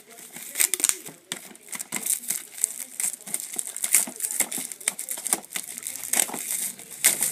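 Plastic wrap crinkling and tearing in irregular crackles and snaps as a sealed box of football trading cards is unwrapped and opened.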